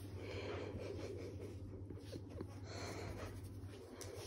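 Soft rustling and scratching of a hand rubbing a dog's fur close to the microphone, with the dog's quiet breathing.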